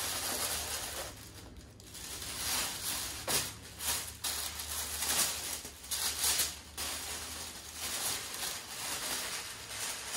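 Black packaging wrap rustling and crinkling as it is handled and a football jersey is pulled out of its box, with sharper crackles now and then.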